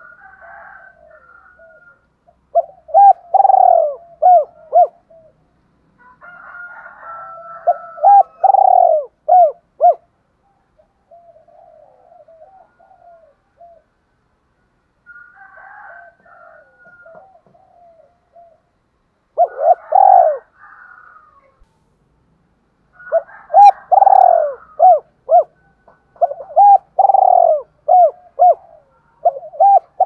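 Spotted dove cooing in several phrases of short repeated coos, with fainter calling between the louder phrases.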